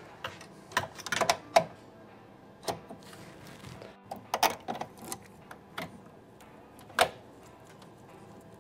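Irregular light clicks and knocks of small metal parts being handled as a buffer's mounting plate and its screws are refitted inside a continuous inkjet printer's metal cabinet, the sharpest knock about seven seconds in.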